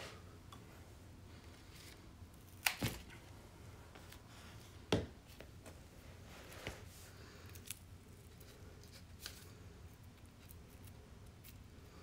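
Pruning snips cutting through a Rhaphidophora tetrasperma (mini monstera) stem: a sharp double snip a little under three seconds in and another single snip about five seconds in, followed by a few fainter clicks.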